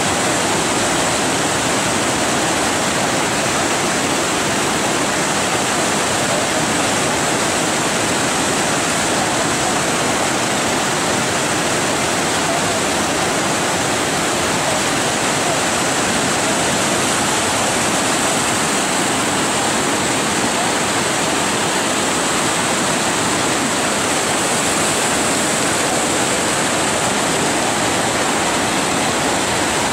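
Whitewater rapids of an artificial slalom course rushing steadily, an even water noise with no break.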